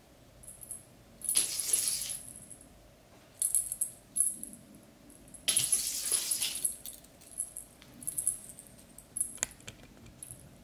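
Small metal bell on the end of a cat wand toy jingling and rattling in irregular bursts as it is waved and batted on the floor. The longest bursts come about a second and a half in and again around five and a half seconds in, with a few short taps near the end.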